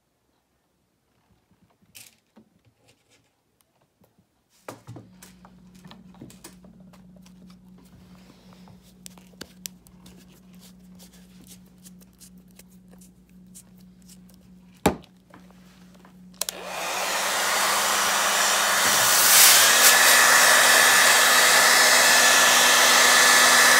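Hand-held hair dryer switched on about two-thirds of the way in, blowing steadily with a whine, drying the freshly painted black lettering on a wooden sign. Before it there are only small clicks and taps over a faint hum.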